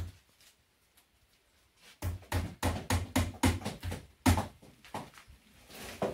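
Hammer driving a nail into a wooden post: one blow, a pause, then a fast run of about ten blows, roughly four a second.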